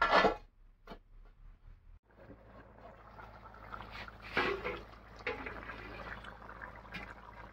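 A short loud clatter from the aluminium pot lid being handled at the start. After that, a pot of thick turkey curry bubbling at a vigorous boil under and after the lifted lid: a steady hiss with irregular plops and pops.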